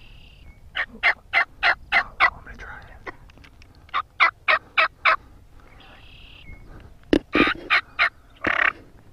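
Turkey yelping: three runs of sharp, evenly spaced yelps, about three a second, with a short high note at the start and another about six seconds in.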